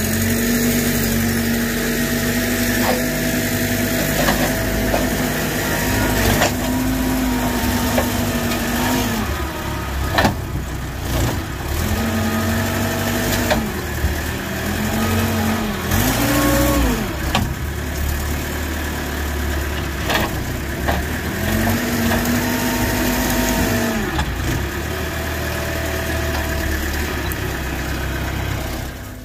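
Genie telehandler's diesel engine running and repeatedly revving up and dropping back as it works its forks and boom, with a few sharp knocks and cracks along the way.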